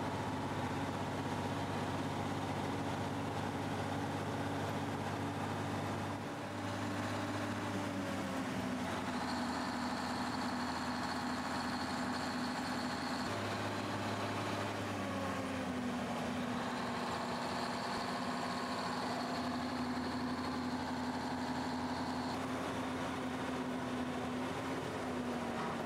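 1954 Freightliner tractor's diesel engine running steadily under way, its note dipping in pitch three times. A thin high whine comes and goes twice.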